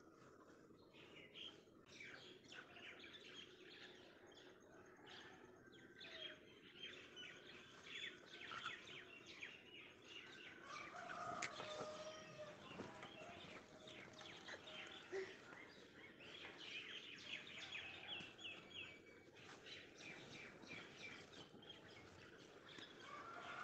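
Faint birds chirping steadily, with a metal spoon scraping in a small steel bowl and one sharp tap about halfway through.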